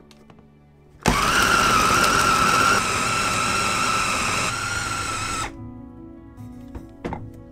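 Small electric press-top food chopper mincing raw chicken. Its motor starts abruptly about a second in, runs with a steady whine for about four and a half seconds, its pitch dropping slightly twice, then cuts off.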